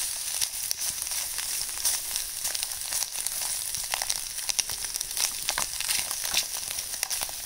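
Vegetables and ham sizzling in an aluminium foil tray over a charcoal shichirin: a steady hiss with many small crackles. The tray has no oil in it, so the food is frying dry and starting to scorch.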